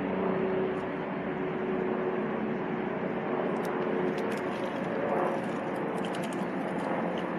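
Steady outdoor background drone: a continuous hum of engine-like tones under a broad rush of noise, with a few light clicks partway through.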